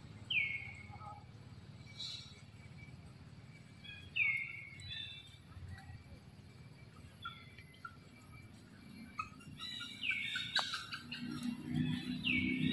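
A bird calling repeatedly, each call a short note sliding down in pitch, a few seconds apart, with fainter chirps in between.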